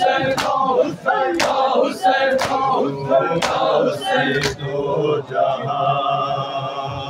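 A group of male mourners chanting "Hussein" in unison, with chest-beating (matam) strokes keeping time about once a second. About four and a half seconds in, the beating stops and the voices hold a long note.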